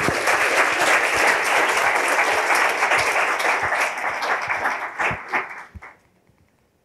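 Audience applauding, many hands clapping together; the clapping thins out and stops about six seconds in.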